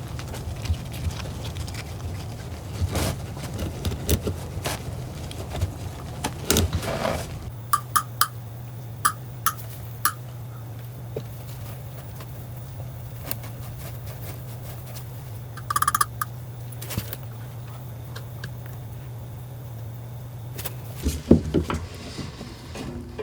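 Scattered light clicks and knocks of PVC drain pipe and fittings being handled while they are primed, over a steady low hum.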